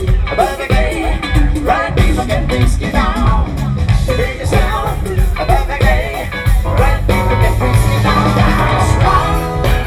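Rock music with a lead vocal singing over guitar, bass and drums, at a steady beat.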